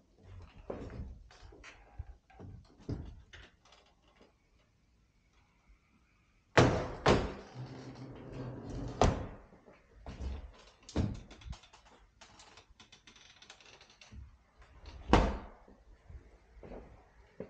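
Wooden interior doors being swung open and shut, with latch clicks, light knocks and rattles and several sharp bangs, the loudest a third of the way in and again near the end.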